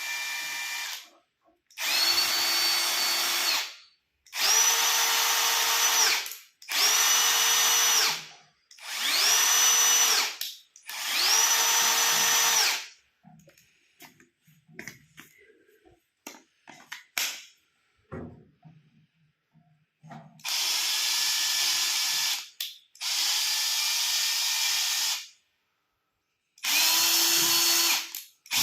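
Milwaukee cordless impact driver run in repeated bursts of about two seconds, its motor whine rising as each burst starts under the rapid hammering of the impact mechanism. Six bursts come in quick succession, then a pause with a few small clicks of handling, then three more.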